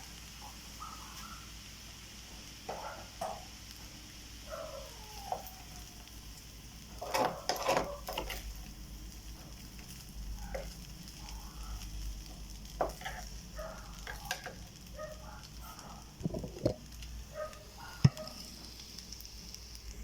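Rice frying in a pan: a steady sizzle, with intermittent stirring and short knocks of a utensil, and one sharp click near the end.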